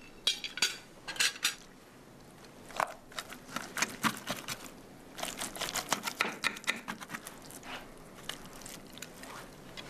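A table knife clicking and scraping against a glass baking dish while a roast chicken is carved and pulled apart by hand to serve. The sound is light, scattered clicks and scrapes.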